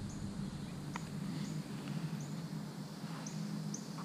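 Outdoor yard ambience: short high chirps repeat about every half second over a steady low hum.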